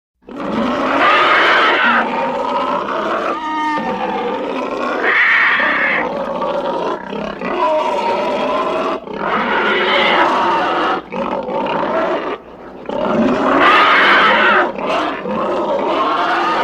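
Monster roar sound effect: a string of long, pitched beast roars one after another with short breaks, strongest about a second in and again around five, ten and fourteen seconds in.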